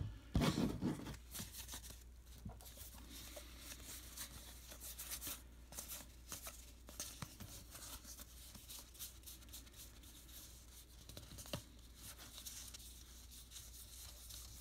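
Cardboard baseball cards leafed through one by one by hand: faint, frequent flicks and rustles of card edges sliding past each other. A louder handling bump comes in the first second.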